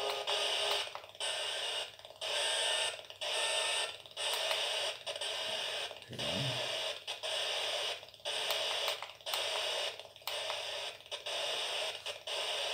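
Homemade spirit box, a hacked FM radio with a scanning module, sweeping across the FM band. It gives bursts of radio static that cut out briefly about once a second as it steps from frequency to frequency.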